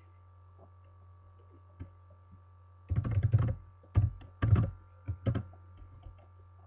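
Computer keyboard being typed on: a quick run of keystrokes about three seconds in, over a faint steady electrical hum.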